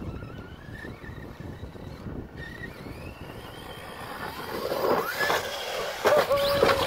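Brushless electric motor of an ARRMA Outcast 4S RC truck whining as it is driven over rough dirt. The whine is faint and rises in pitch at first, then grows louder with sweeping changes in pitch in the last couple of seconds as the truck comes close and jumps.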